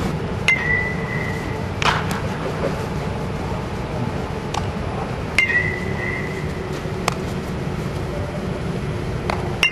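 Aluminum baseball bat hitting fungo ground balls: three ringing metallic pings, about four to five seconds apart, with shorter clicks between them as the ball smacks into a leather glove. A steady low rumble runs underneath.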